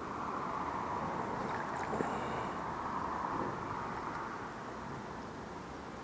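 Steady rushing of flowing river water, a little louder in the first few seconds and easing toward the end.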